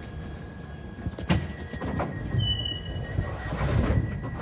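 Glasgow Subway train setting off from a platform: a low rumble with a steady thin whine, a sharp clunk about a second in, a short high beep, then the running noise swells as the train pulls away.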